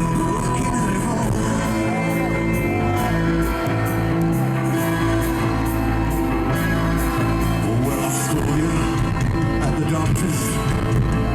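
Live rock band playing, with a stepping bass line, held keyboard chords and steady drums, and some singing and shouting over it.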